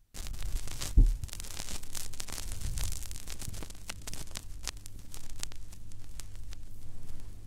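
Vinyl record surface noise in the lead-in groove: a steady crackle with many sharp clicks and pops over a low hum, and one loud low thump about a second in.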